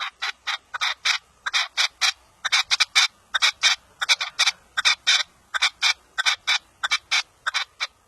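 Partridge calling: a rapid series of short, harsh notes, about four a second, in uneven runs.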